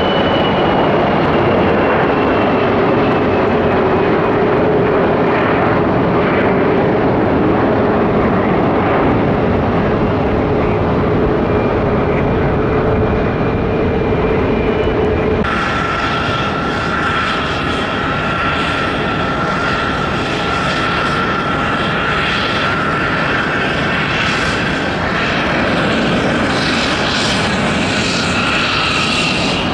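Turbofan jet noise from a Bombardier Global Express 6000's Rolls-Royce BR710 engines climbing out after take-off: a steady rumble with whining tones that slowly fall in pitch. About halfway through it cuts to a Boeing 737-900ER's CFM56-7B engines at take-off thrust, with a brighter, higher whine and a steady whining tone.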